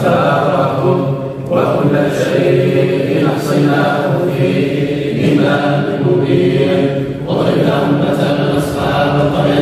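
A group of men reciting the Quran together in unison, chanting in long sustained phrases that break briefly every couple of seconds.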